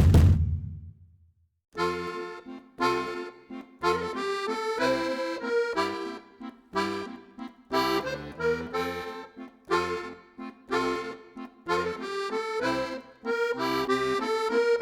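A deep rumbling intro sound fades out in the first second. After a brief silence, background music starts about two seconds in: bouncy chords in an even rhythm, in the style of a squeezebox tune.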